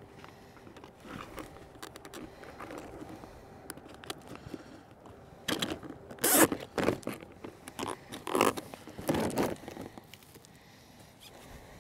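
Plastic zip ties being pulled tight, several short ratcheting zips in the second half, fastening a plastic pyramid insect trap to a rebar stake.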